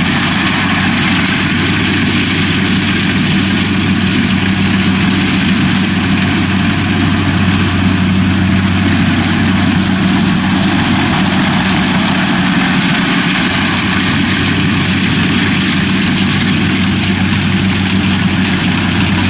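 Kubota DC-60 combine harvester running steadily while cutting lodged rice: an even diesel engine drone under a wide mechanical whirr, with no change in speed.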